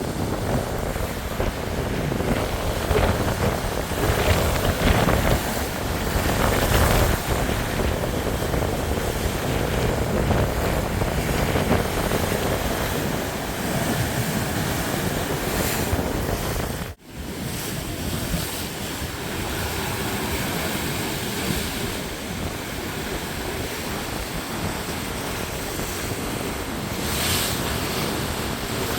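Ocean waves and water rushing, with wind buffeting the microphone: a steady noise that swells a few seconds in, with a sudden brief dropout a little past the middle.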